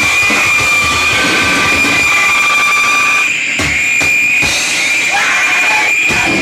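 Noise-rock band playing live and loud: a dense wall of distorted noise with a steady high-pitched whine held over it. The wall briefly drops out a few times in the second half.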